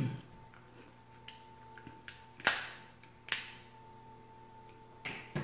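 Snow crab leg shells cracking and snapping as they are broken apart by hand: a few sharp cracks, the loudest about two and a half seconds in, another just after, and one more near the end, with small ticks of shell between.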